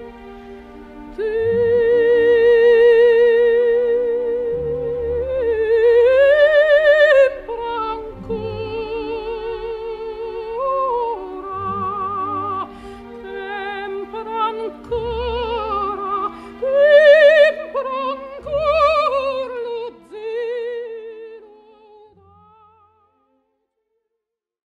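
Background music: a high operatic voice in the soprano range sings a slow melody of long held notes with wide vibrato over sustained low accompaniment, fading out near the end.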